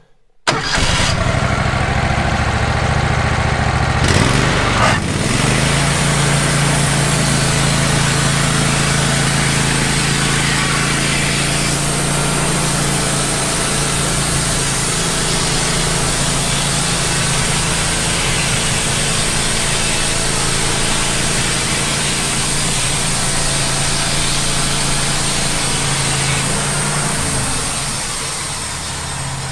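Wood-Mizer LT15 band sawmill running: its engine comes in abruptly, revs up a few seconds in, then runs steadily at speed with the band blade turning as the head is pushed through the log, easing off slightly near the end.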